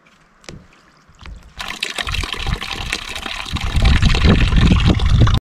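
Water pouring from a spigot into a plastic bucket, splashing in about a second and a half in and getting louder as it runs. It is the first flow through the newly plumbed PVC line from the tank, at reduced pressure while sediment and rock are still being flushed out.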